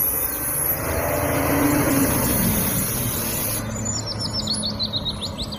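Garbage truck driving past, its engine running with a steady low drone over road noise. A run of quick, high, falling chirps comes in a little past the middle.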